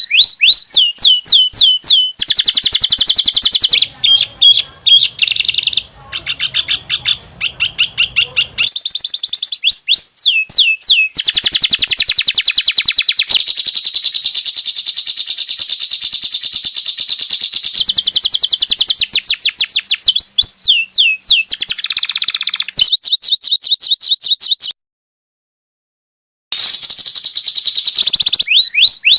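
Recorded songbird song of the kind used as masteran tutor song for cage birds: loud, fast strings of high sweeping notes and trills, in spliced segments that switch abruptly. It drops to silence for about two seconds near the end, then the song resumes.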